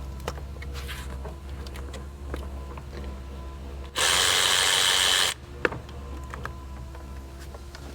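A small cordless power tool runs once for just over a second, about halfway through, backing off an 8 mm clamp fastener on the breather box. Light clicks of tools on metal come before and after it.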